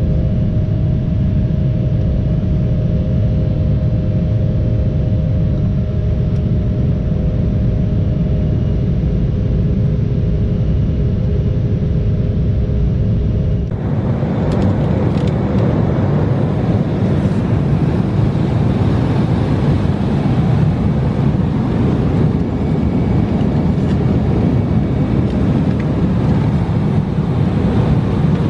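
Embraer 175's CF34 turbofan engines at climb power, heard through the cabin window: a steady rumble with a few steady humming tones. About 14 s in the sound switches abruptly to a brighter, hissier steady rush of engine and airflow noise as the jet climbs through cloud.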